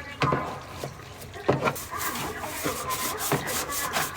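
Hand scrubbing or rubbing on a washing-machine part, with a few knocks near the start followed by a run of quick scraping strokes.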